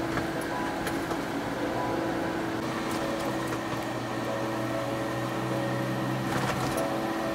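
Soft background music of held, sustained notes that shift to new pitches a few times.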